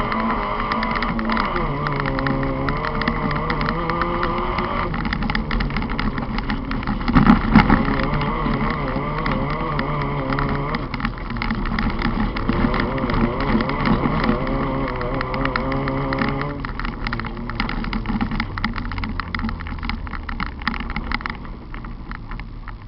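Onboard sound of a Volkswagen Polo autocross car racing on dirt: its engine revs rise and fall through gear changes, with a constant clatter of gravel and dirt against the bodywork. There is a loud bang about seven seconds in, and the engine drops lower and quieter near the end.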